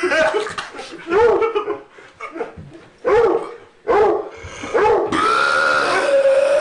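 Men burping one after another: about five short, abrupt burps, then one long drawn-out burp starting about five seconds in.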